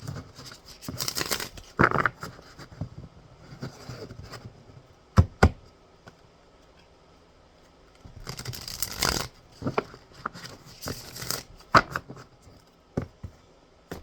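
Tarot cards being shuffled and handled by hand in bursts of rustling, with a few sharp taps.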